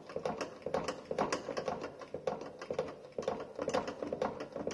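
Hand pump of a dead-weight tester being worked in quick strokes, a rapid run of clicks and knocks, building pressure to lift the piston and calibration weights.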